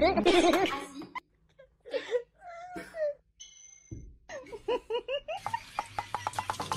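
Laughter: wavering vocal sounds at the start, a few short cries in the middle, then a quick run of repeated ha-ha bursts over the last couple of seconds.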